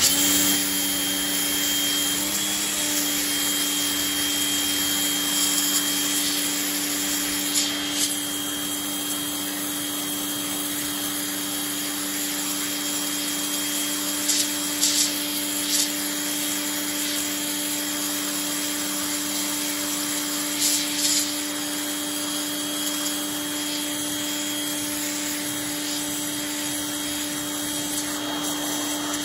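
WAP Ousada Plus 2200 electric pressure washer running steadily, its pump motor humming with a steady tone under the hiss of the straight jet blasting moss off a painted wall. A few brief louder bursts of spray come and go.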